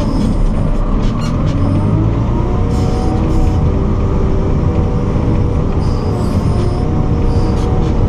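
JCB 4CX backhoe loader's four-cylinder diesel engine working under load as the loader pushes snow, heard from inside the cab. A deep, steady rumble carries a whine whose pitch slowly rises and falls with the engine's effort, and a few light rattles come through now and then.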